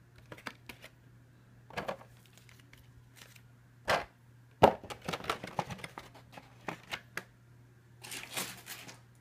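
Clear plastic packaging tray of a model airliner being handled: a series of clicks and crinkles, with one sharp crack about four and a half seconds in, a flurry of crackling just after it and a longer crinkle near the end.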